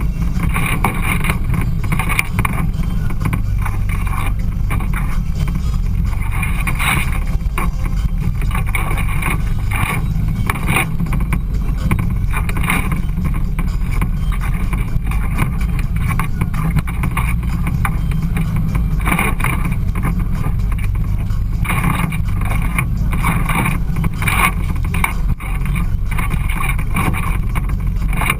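Side-by-side UTV driving along a rough trail: a steady low engine and drivetrain rumble, with uneven bursts of higher rattle and wind noise that come and go.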